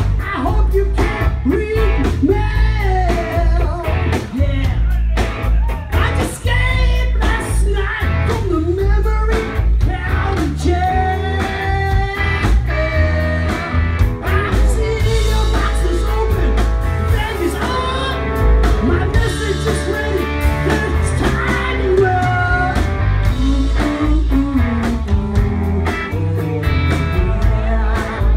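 Live rock band playing a bluesy song: electric guitars, bass and drum kit, with the drummer singing lead.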